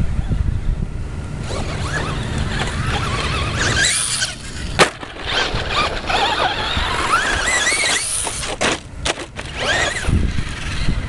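Traxxas Slash 2WD radio-controlled truck's electric motor and gears whining, rising and falling in pitch as it speeds up and slows down. There is a sharp knock about five seconds in, and wind rumbles on the microphone.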